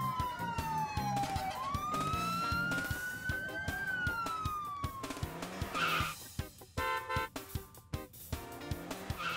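Fire truck siren wailing in slow sweeps, falling, rising, then falling again, over background music with a steady beat. A short musical jingle follows near the end.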